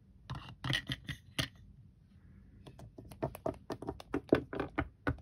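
Small plastic Littlest Pet Shop toy dog figures tapped along a hard surface to make them walk: a quick, irregular run of light clicks and taps, with a short pause partway through.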